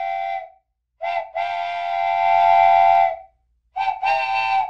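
Steam locomotive whistle sounding several notes at once in a series of blasts. A blast ends about half a second in, then comes a short toot and a long blast of about two seconds, the loudest. Near the end there is another short toot and a blast that runs on past it.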